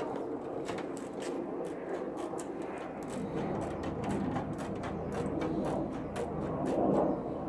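Tin snips cutting through a sheet-metal hood panel: irregular sharp snips with metal scraping between them.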